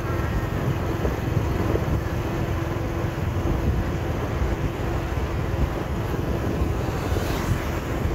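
Wind buffeting the microphone over low road rumble from a vehicle travelling fast along a paved highway, with a faint steady hum for a few seconds about a second in.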